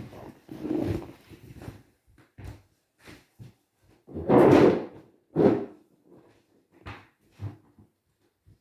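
Scattered knocks and rustling of someone rummaging through things in search of a toy, with two louder thumps about four and a half and five and a half seconds in.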